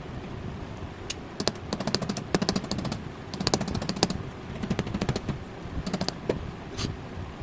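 A quick, irregular run of sharp clicks and light taps, like small hard parts and tools being handled, over a steady background hiss.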